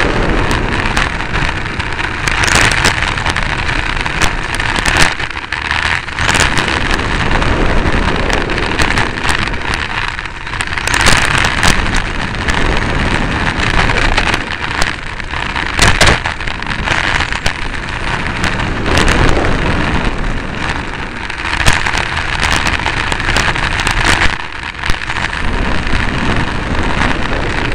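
Onboard sound from a 1/10-scale electric Xray T4 touring car running at speed: a loud, steady rush of wind and tyre noise on the microphone, with sharp knocks and rattles every few seconds as the chassis hits bumps.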